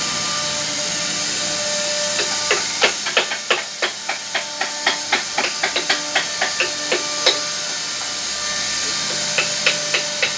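Rapid hammer strikes, about four a second, starting about two seconds in, stopping briefly past the middle and starting again near the end, over a steady hiss.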